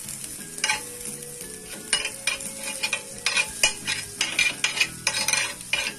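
Butter sizzling on a hot ridged grill pan as a metal spoon spreads it, with irregular scrapes and clicks of the spoon against the ridges.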